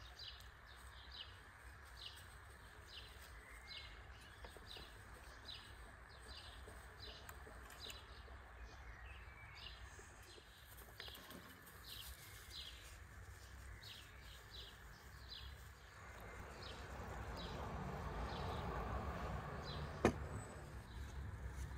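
A small bird chirping over and over, about two short high chirps a second, over a steady low outdoor background. Near the end a broader noise swells and a single sharp click sounds.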